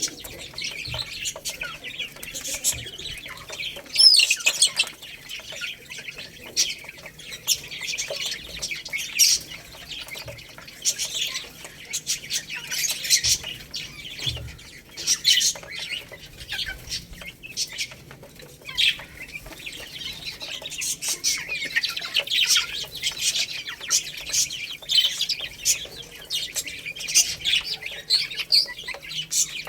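A group of baby chicks peeping nonstop, with many high chirps overlapping.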